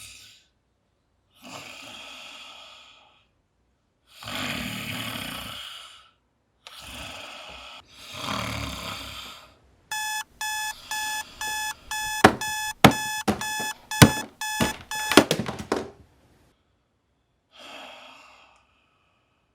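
Several long, noisy snoring breaths, then an electronic alarm clock beeping in quick repeated bursts for about six seconds. A few sharp knocks land among the later beeps, and there is one more snore near the end.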